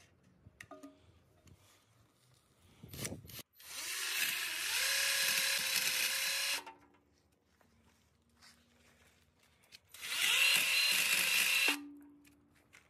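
Cordless drill driving a chainsaw attachment, its chain cutting into a tree trunk in two runs of about three and two seconds, each a steady high whine that drops in pitch as the drill lets off. A short burst of noise comes just before the first run.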